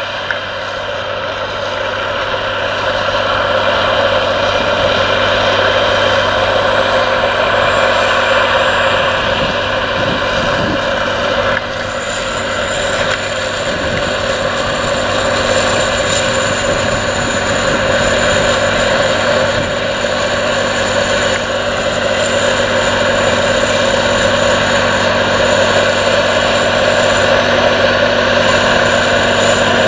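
Caterpillar Challenger MT865C tracked tractor's C18 six-cylinder diesel running steadily under load as it pulls a plough through the soil, with a thin high whine over the engine note. It grows louder over the first few seconds as the tractor draws closer.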